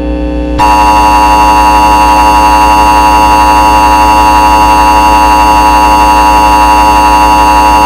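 Emergency Alert System attention signal: a loud, steady, harsh alert tone that starts just under a second in and holds without change, over a constant low hum.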